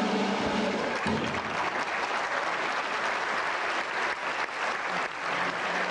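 Audience applause in a theatre. It follows the music, which ends with a final low note about a second in.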